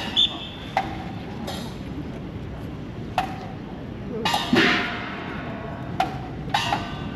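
Sharp clacks or knocks, several at uneven spacing, the strongest about four and a half seconds in, over a steady background noise.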